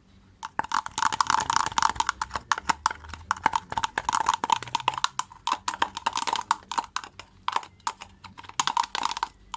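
Homemade slime mixture being stirred briskly in a container: a fast, continuous run of clicks and wet taps as the stirrer hits the sides. The mix is thickening and getting hard to stir.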